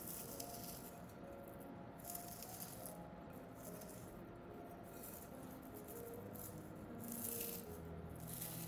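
Quiet background music with a few short bursts of rattling, like a shaker, over it.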